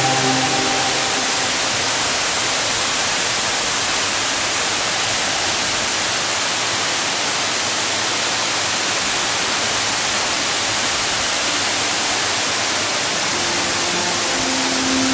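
Large waterfall pouring with a steady, unbroken rush of water. Background music fades out in the first second and comes back in near the end.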